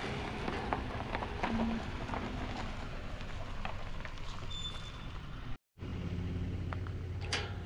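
Toyota Sienna minivan moving slowly over a sandy dirt lot, a steady low noise with scattered small clicks from the tyres. After a brief break, a metal gate chain clinks once near the end.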